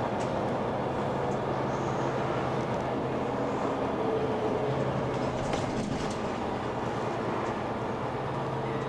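Mercedes-Benz Citaro C2 K hybrid city bus running, heard from inside the passenger cabin: a steady mechanical hum with a few constant low tones.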